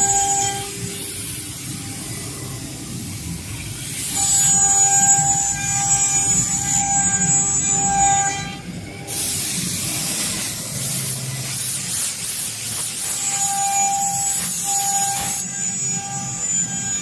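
Double-spindle CNC router running: the two spindles whine at a high steady pitch while the bits cut into a wooden board, with a hissing cutting noise that swells and fades as the head moves.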